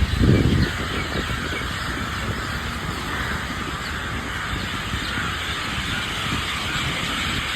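A dense chorus of many roosting birds calling and chattering together, thousands of them settling into trees at dusk. A steady low rumble runs underneath, and a brief loud low bump comes in the first second.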